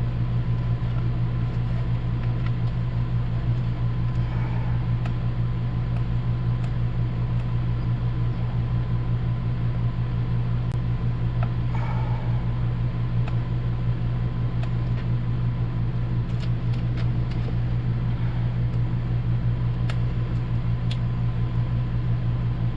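A steady low mechanical hum that runs unchanged throughout, with a few faint light clicks and rustles over it.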